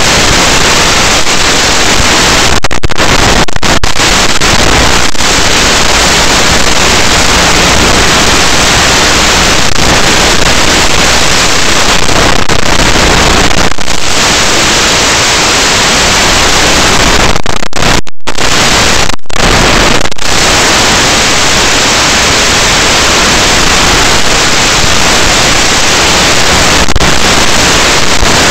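Loud, steady static hiss from an analog 5.8 GHz FPV video receiver's audio channel, cutting out for an instant a few times, around three seconds in and twice near the middle.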